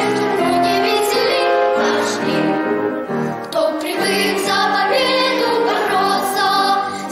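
Children's choir singing, holding long notes with vibrato, with a short breath about three and a half seconds in.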